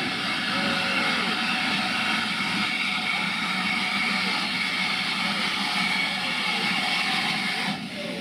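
Steam locomotive running slowly tender-first with its train, a steady rushing hiss. The hiss drops away abruptly near the end.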